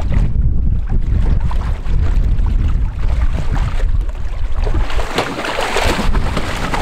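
A hooked hammerhead shark splashing and thrashing at the surface beside the boat, the splashing getting loud about five seconds in. A steady low rumble, typical of wind on the microphone, runs under it.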